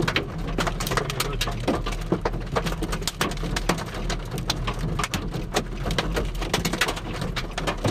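Raindrops striking a vehicle's windshield and body, many sharp irregular taps, over a steady low hum.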